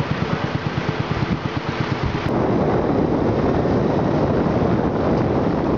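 A small boat engine running with a fast, rough beat for about two seconds, then an abrupt cut to a steady rush of wind over the microphone from riding a motorbike along a road.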